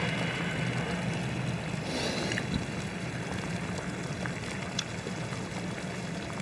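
Sichuan red-broth hotpot boiling steadily on the table, with a few faint clicks of utensils.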